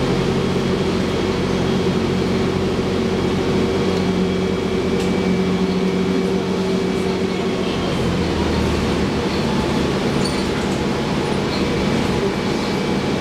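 Transit bus engine and drivetrain running as the bus drives and turns, heard from inside the cabin near the front: a steady drone whose engine tones shift about eight seconds in.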